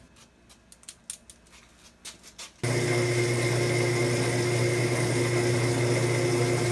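A few faint metal clicks and taps as the centering cone is worked out of the boring machine. Then, about two and a half seconds in, a steady electric motor hum comes in suddenly and runs on evenly.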